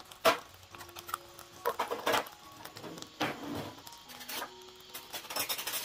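Hot oil crackling and popping in sharp, irregular cracks around whole boiled eggs coated in turmeric and salt, shallow-frying in a pan. The loudest crack comes about a third of a second in, and there is a quick run of pops near the end.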